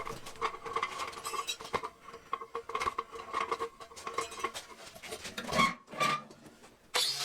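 Scattered light metallic clinks and knocks of sheet metal and hand tools being handled during VW Beetle panel work, with a couple of louder ringing knocks near the end.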